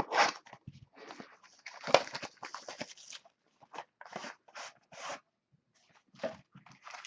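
Crinkling and tearing of plastic shrink-wrap and rustling cardboard as a sealed trading-card box is unwrapped and opened, in irregular scratchy bursts.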